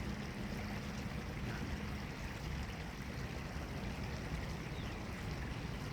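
Steady low rumbling outdoor background noise, with a few faint short chirps above it.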